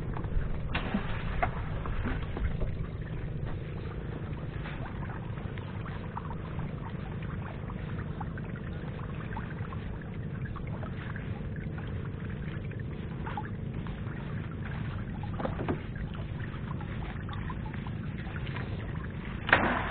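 Small fishing boat's engine running steadily, a low, even drone, with a few light knocks.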